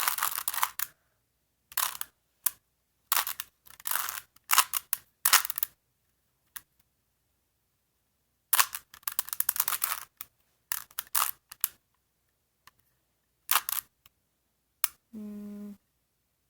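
Plastic clicking and clacking of a 3x3 Rubik's cube being turned fast by hand, in bursts of rapid turns with short pauses between them. A brief low hum comes near the end.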